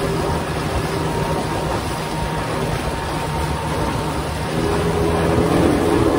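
Small fishing boat's outboard motor running steadily under way, with the rush of wind and water over it.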